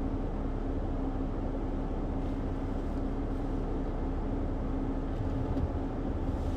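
Jeep Willys engine idling steadily with a constant low hum, the vehicle stopped on the trail.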